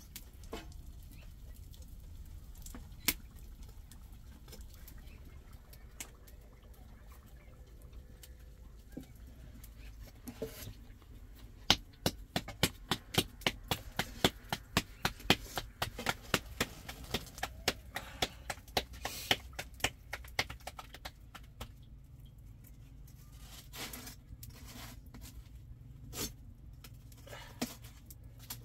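Hands patting a ball of bulani dough flat between the palms: a quick run of sharp slaps, about two to three a second, through the middle of the stretch. A low steady rumble runs beneath.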